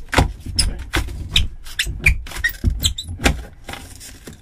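A chisel prying and scraping out soaked, rotted wood and rigid foam insulation from a motorhome's cab-over bunk floor: a quick irregular run of crunches, scrapes and short squeaks, thinning out near the end.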